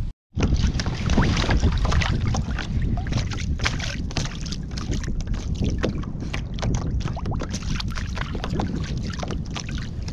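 Wind buffeting the microphone with a steady low rumble, and small waves slapping and splashing against a plastic sit-on-top kayak's hull in many short splashes. The sound cuts out briefly at the very start.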